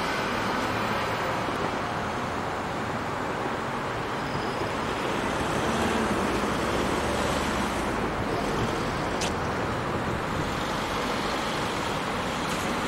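Steady city road traffic noise from passing cars, with one brief sharp click about nine seconds in.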